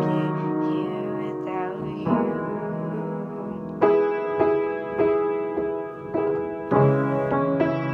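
Acoustic piano played solo: sustained chords at first, then from about four seconds in repeated chords struck roughly twice a second.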